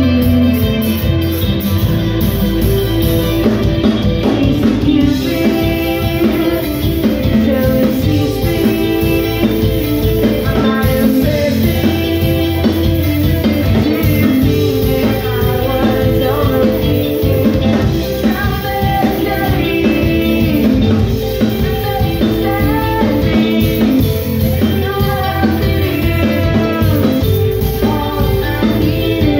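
Live rock band playing: electric guitars, bass and drum kit, with a male singer's vocals over them.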